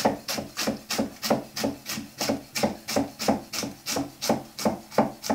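Chef's knife finely shredding Savoy cabbage on a wooden chopping board: a steady run of crisp slicing cuts, about three a second, each ending on the wood.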